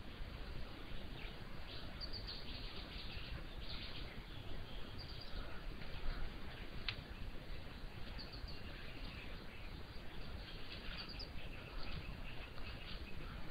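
Outdoor ambience on a camera-trap microphone: a steady low hiss, with scattered short bird chirps and a single sharp click about seven seconds in.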